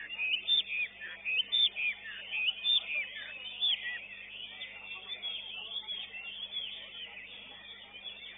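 Caged songbirds singing at a bird-song contest, a dense mix of short rapid chirps and whistled notes from several birds at once. It is louder and busier in the first four seconds, then thinner, over a faint steady hum.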